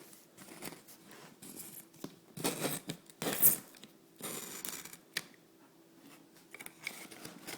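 Shipping box being opened by hand: several short tearing, rustling bursts, the loudest about three and a half seconds in, and a sharp click a little after five seconds.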